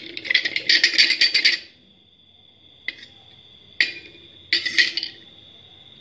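Steel spoon scraping and grinding a lump of heated borax against a steel saucer for the first second and a half, crushing it to powder, then three or four separate sharp clinks of spoon on saucer.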